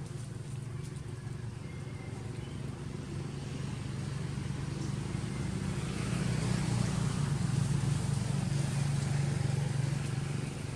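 Low, steady motor engine hum that grows louder about six seconds in.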